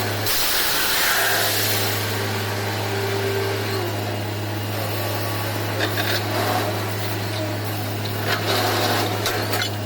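Borewell drilling rig running: a steady low engine drone under a constant noisy hiss, with a few sharp knocks.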